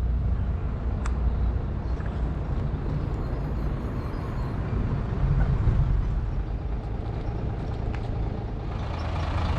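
Road traffic: a steady low rumble of passing vehicles, swelling briefly about five seconds in.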